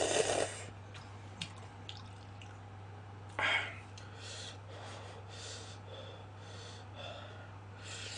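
A person slurping instant cup noodles, with a slurp right at the start and another short, sharp one about three and a half seconds in, soft breathing and chewing between them. A steady low electrical hum runs underneath.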